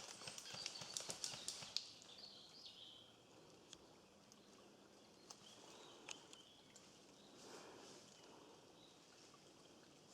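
Footsteps crunching through dry leaves and twigs on a forest floor for the first couple of seconds, then stopping. What follows is near quiet, with a few faint bird chirps.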